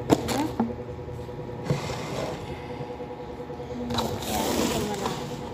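Handling noise from clear plastic food tubs being moved about on a table: one sharp knock at the very start, then a few lighter knocks and clicks with rustling in between.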